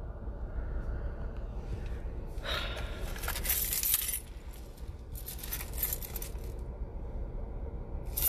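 Steady low rumble inside a car cabin, with two bursts of rustling, clinking handling noise, one about two and a half seconds in and one about five seconds in, and a sharp click near the end.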